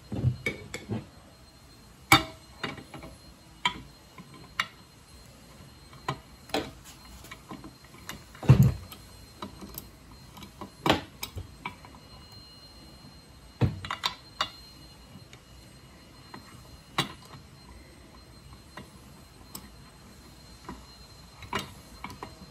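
Metal hand tools and a socket clinking and knocking as they are handled and set against a dirt bike's swingarm bearing, in irregular taps with a heavier thud about eight and a half seconds in.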